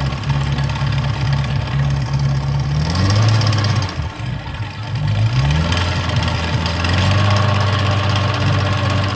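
Glastron runabout's sterndrive engine running on its trailer on a garden hose for cooling water. It runs steadily, is revved up and back down a couple of times about three to five seconds in, then settles into a steady run again.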